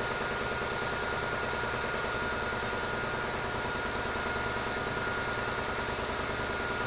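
Electric piston air compressor running steadily as it pumps up its tank: an even low pulsing with a thin steady whine above it.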